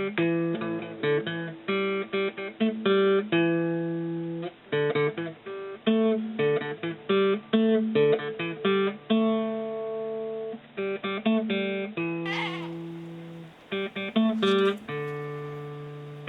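Background music: acoustic guitar playing a stream of plucked notes.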